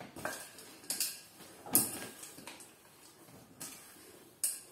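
Hands kneading chocolate chip cookie dough in a stainless steel bowl: the bowl clinks and knocks at irregular moments, about half a dozen times, the sharpest about two seconds in and near the end, with soft handling of the dough between them.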